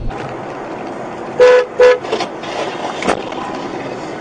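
Car horn honking twice in quick succession, two short loud toots, over steady road noise, followed about a second later by a brief sharp knock.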